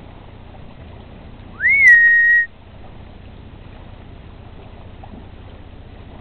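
A person whistles once, a loud note that glides up quickly, dips slightly and then holds steady for about a second, over a steady low background hiss.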